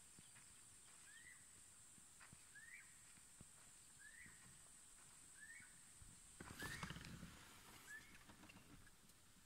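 Faint bird call, a short upslurred whistle repeated about every second and a half, over a steady thin high-pitched hiss. About seven seconds in comes a brief burst of rustling and low thuds.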